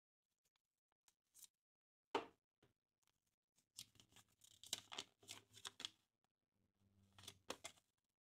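Crinkling and tearing of a Kinder Surprise egg's foil wrapper being unwrapped by hand, in quick crackling rustles, with one sharp click about two seconds in.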